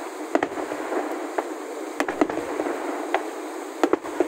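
Fireworks shells bursting with several sharp bangs at irregular intervals, two pairs in quick succession, over a steady rushing noise.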